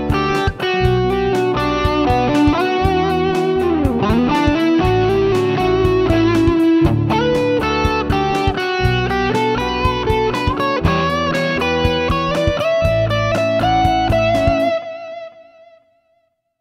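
Playback of a I–VI–II–V chord progression: a lead electric guitar playing over bass and programmed drums, with a bent note about four seconds in. The band stops near the end and a last guitar note rings out and fades.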